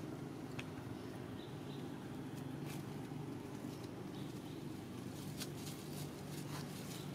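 Outdoor ambience: a steady low hum under scattered light clicks and rustles, with a few faint high chirps.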